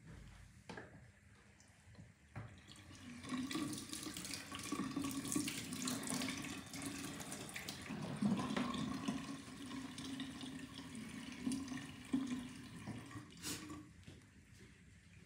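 Tap water running into a sink and splashing as a facial scrub peel is rinsed off, starting about three seconds in and stopping near the end, with a few sharp clicks, one just before the water stops.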